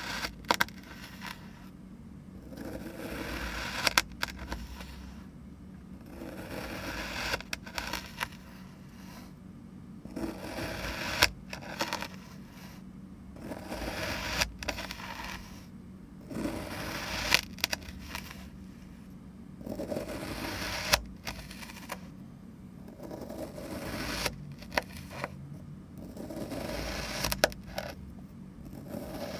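A plastic knife slicing again and again through a block of kinetic sand: about eight gritty scrapes, one every three to four seconds, each ending in a sharp tap.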